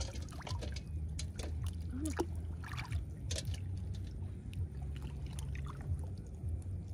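Water sloshing in many short, irregular splashes and drips as someone wades and gropes underwater along submerged branches for snails, over a steady low drone.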